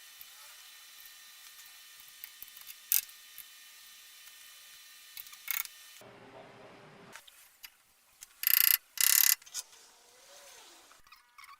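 Hand-tool work on metal parts: a few faint sharp clicks over a low hiss, then two loud short bursts of noise a little under a second apart.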